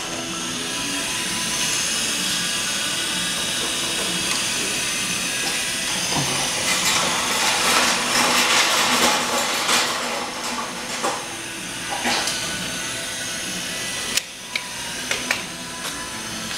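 Gas burners of a Star Max 624 MD griddle running with a steady hissing rush. The rush grows louder for about three seconds in the middle, with clicks and knocks over it.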